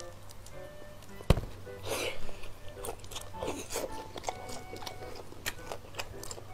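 Close-up wet chewing and biting of a cheesy pizza slice, with a sharp click a little over a second in, over quiet background music.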